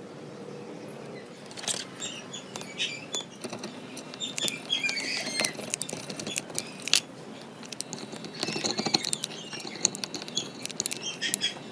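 Irregular small clicks, taps and light scratching of hard objects being handled, busier from about four seconds in and again near the end.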